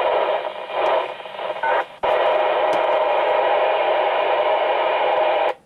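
Radio static from a transceiver's speaker. For the first two seconds it is noisy with faint broken fragments. Then a click about two seconds in opens a steady hiss, the open-squelch noise of a receiver with no station on the channel, which cuts off abruptly near the end with a short beep.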